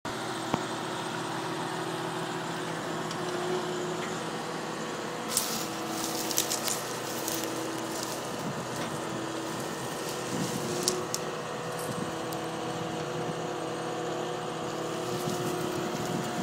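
Bobcat compact track loader's diesel engine running steadily, with a cluster of sharp clanks and knocks about five to eleven seconds in.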